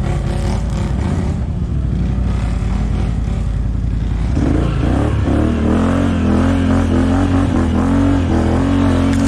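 ATV (quad bike) engine running at low speed, then revving up about four seconds in and holding a steady higher speed.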